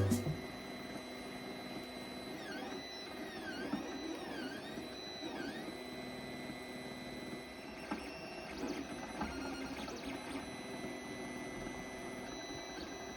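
3D printer running a print: its stepper motors whine over a steady electronic tone, with the pitch sweeping down and back up several times in a row from about two and a half seconds in, and a few faint ticks later on.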